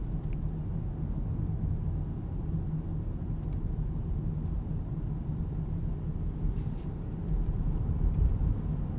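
Steady low rumble of a car being driven at low speed: engine and tyre noise.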